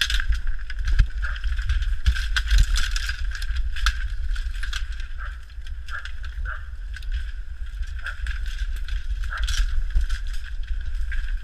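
Dense bamboo canes rustling, scraping and clacking against the body and camera while someone pushes through a thicket on foot, with a heavy low rumble of handling and movement on the microphone.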